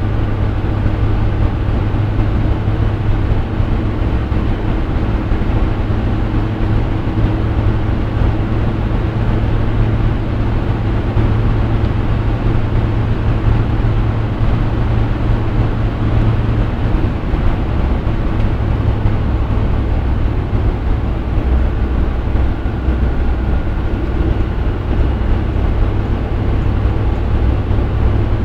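Steady running noise of a vehicle on the move, with a low hum that drops lower about halfway through.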